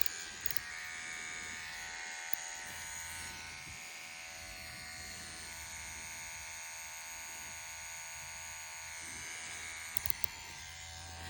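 CNC Q2 rotary tattoo pen with an 11 round liner cartridge running steadily at 6.5 volts, a smooth electric hum. A few faint clicks fall over it.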